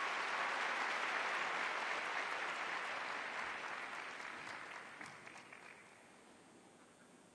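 Arena audience applauding a skater just announced, the applause fading away about three to six seconds in.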